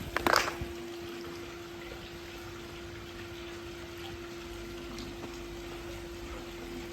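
Water trickling and splashing over a steady electric hum, with one short, louder splash-like burst about a third of a second in.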